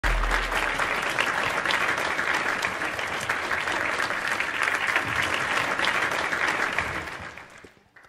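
Audience applauding, many hands clapping at once, dying away over the last second.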